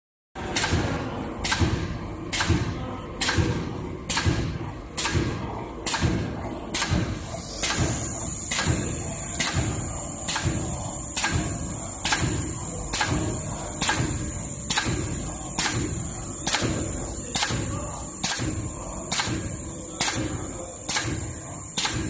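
Popcorn-bag aluminium foil mounting machine running, with a sharp knock a little more than once a second from its repeating cycle over a steady mechanical rumble. A faint high whine joins about a third of the way through.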